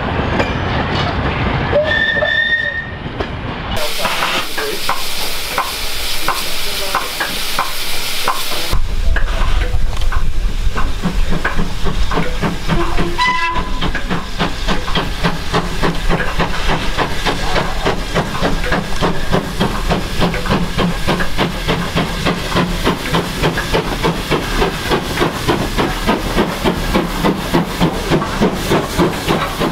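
Railway wagons clattering past, then a spell of loud steam hiss. About halfway through a short steam whistle sounds, and a double-headed steam train approaches and passes close, its exhaust beats growing louder at about two a second.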